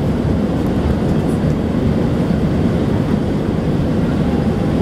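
Steady low roar of an Airbus A320-200's jet engines and rushing air, heard from inside the passenger cabin as the jet climbs out after takeoff.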